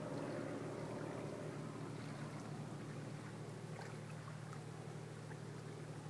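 A distant vehicle engine running steadily out in the flooded creek. Its hum is strongest at first and eases somewhat after about two seconds.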